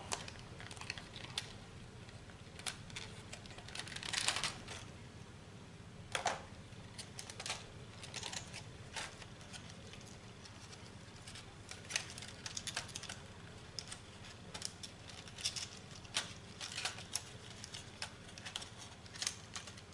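Thin clear plastic clamshell packaging tray clicking and crinkling faintly as fingers pry small accessories out of it: scattered light clicks with a couple of short rustles.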